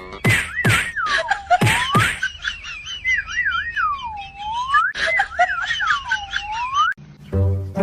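A high whistle-like tone warbles and swoops down and back up, again and again, with sharp clicks among it. Just before the end it cuts off and music-like notes begin.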